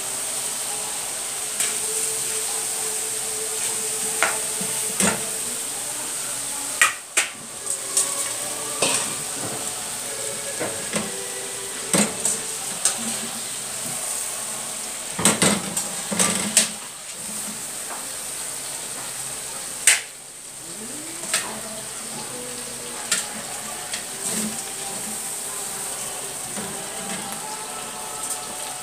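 Thin-sliced chicken frying in oil in a pan, a steady sizzle, with metal tongs clicking and scraping against the pan as the pieces are lifted out.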